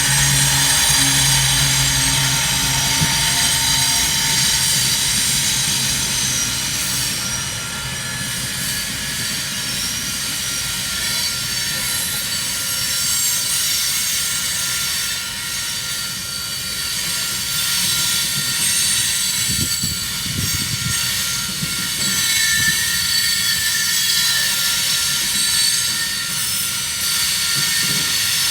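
Union Pacific locomotive horn ending about four seconds in, then a coal train rolling past, its steel wheels on the rails giving a steady rumble with high metallic squealing.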